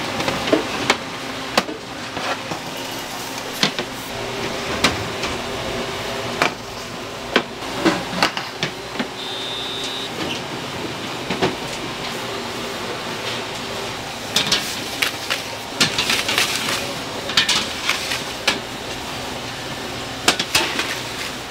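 Clattering and knocking of work, irregular and heavier in a burst past the middle, over a steady machine hum, with a short high beep about nine seconds in.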